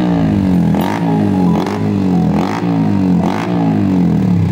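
Yamaha R15 M's single-cylinder engine through an aftermarket exhaust, revved in about four quick throttle blips in a row, the pitch rising and falling with each blip and a sharp crack at each one.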